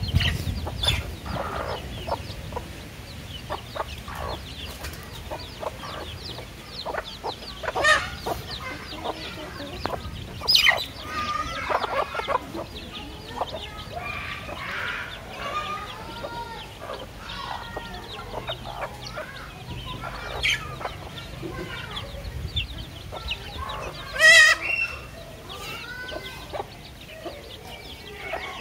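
Domestic chickens feeding: hens clucking in short arched calls while chicks give many thin, high peeps. One louder, sharper call stands out a few seconds before the end.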